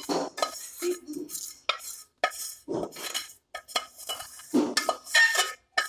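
Metal spoon scraping and knocking inside a metal saucepan, breaking up the dried crust left by boiled-down ENO fruit salt. It makes a string of irregular scrapes with a faint metallic ring and is loudest near the end.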